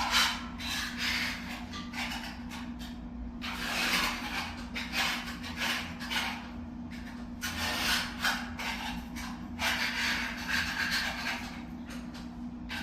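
Old tile grout being scraped out of the joints, in uneven scratchy strokes with short pauses between them, over a steady low hum.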